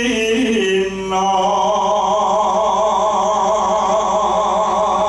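A man singing through a microphone and stage loudspeakers. He slides over a few short notes, then drops about a second in to one long note that he holds with a steady, wavering vibrato.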